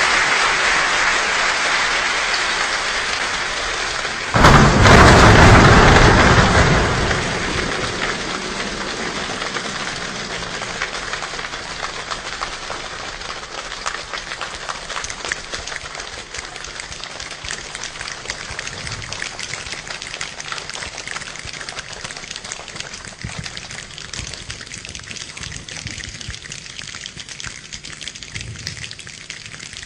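A group of people making a rainstorm with their hands: dense clapping and patting like heavy rain, with a sudden louder burst with deep thumps about four seconds in. It then thins out into scattered taps and snaps and fades as the 'rain' dies away.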